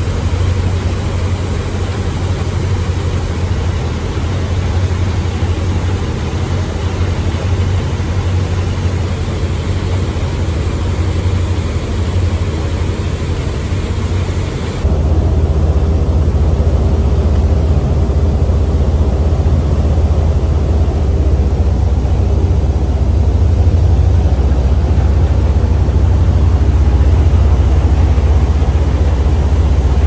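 A passenger ferry's engines running steadily with a heavy low drone, over the hiss of the churning wake and wind. About halfway through, the hiss drops away abruptly and the low drone grows louder.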